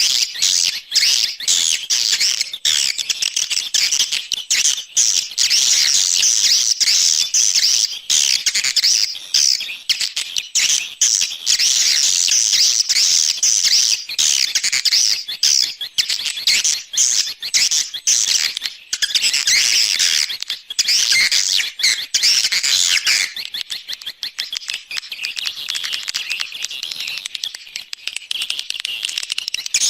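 Dense, continuous chorus of swiftlet twittering calls: a swiftlet-farming 'external' lure sound played outside a bird house to attract swiftlets. The chorus is broken by many brief gaps and becomes a little quieter and thinner about three-quarters of the way through.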